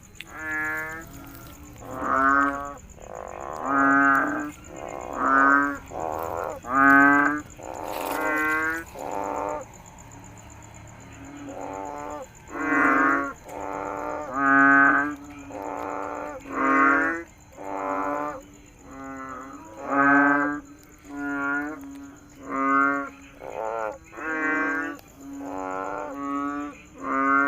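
Frogs croaking: a long series of short, wavering croaks, each about half a second, coming roughly once a second, with a pause of about two seconds a third of the way through.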